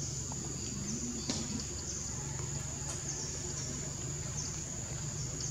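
Forest insect chorus: a steady, high-pitched buzz over a low background rumble, with a single short click just over a second in.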